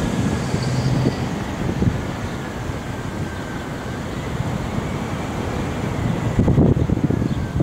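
Car driving slowly, heard from inside: a low, uneven engine and road rumble with gusty wind noise on the microphone. It swells louder about six and a half seconds in.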